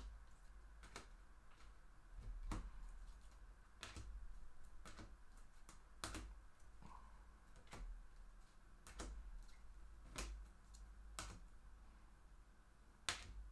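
Sharp clicks and light taps at uneven intervals, about one a second, from trading cards and plastic card holders being handled and set down on a desk.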